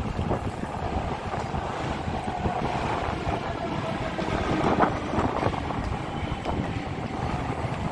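Rumbling wind and handling noise on a handheld phone's microphone carried at a brisk walk, with a faint steady tone in the middle.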